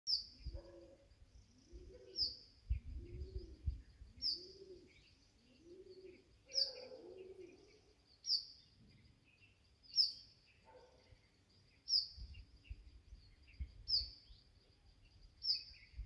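Birds calling: one bird repeats a short, sharp, high call about every two seconds, while lower rising-and-falling calls from another bird come about once a second through the first half.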